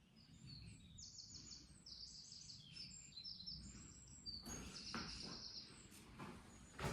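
Small birds chirping in quick runs of high repeated notes, three short bursts, faint over a low steady rumble. A short knock near the end.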